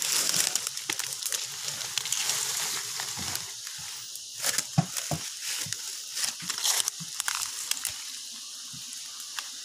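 Rustling and crunching of dry leaves and undergrowth, with irregular snaps and clicks, as someone pushes through forest brush.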